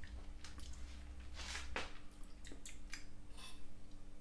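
Quiet eating sounds: a metal spoon scraping and tapping in a bowl of mashed potato, with soft mouth and chewing sounds, heard as a string of short faint clicks and squelches.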